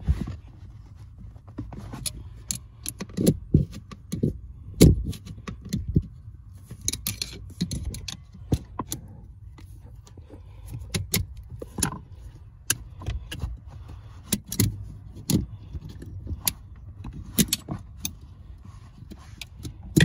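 Thin metal pry tool clicking and scraping against the brake pedal bracket and the plastic brake light switch of a 2008 Chevrolet Tahoe as the stubborn switch is worked loose: many irregular sharp clicks and knocks.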